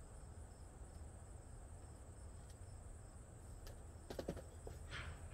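Faint, steady insect chirping in an even pulsing rhythm. About four seconds in, a short clatter of knocks as the freshly painted wooden toolbox is picked up and moved.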